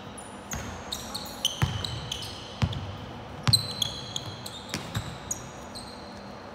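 Basketball bouncing several times on a hardwood court, with sneakers squeaking sharply on the floor as players cut and stop, echoing in a large hall.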